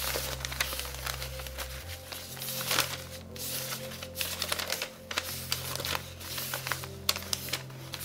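Newspaper paper rustling, crinkling and clicking as the pages are handled, in a dense, irregular run of crackles, over soft background music.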